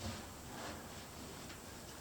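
Faint room tone inside a closed elevator cab, with a few light ticks.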